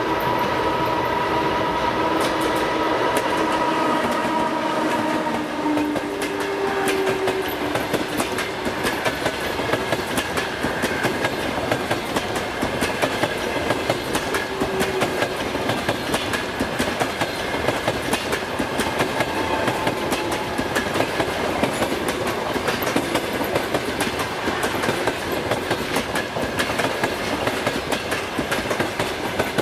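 EP2K electric locomotive and passenger train passing at speed. The locomotive goes by with a steady whine in the first few seconds, then the coaches roll past, their wheels clattering rapidly and steadily over the rail joints.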